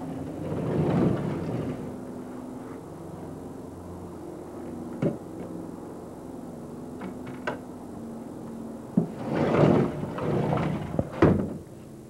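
Sliding glass patio door rolling along its track, with sharp knocks from the frame and latch; the loudest stretch near the end ends in a sharp knock as it shuts.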